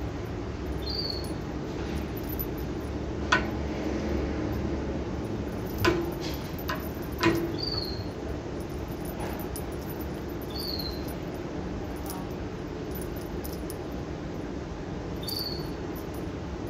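A feather wand toy with a small bell clicking and knocking a few times as a kitten swats at it, over a steady background hum. A short, high, slightly falling chirp comes about every three seconds.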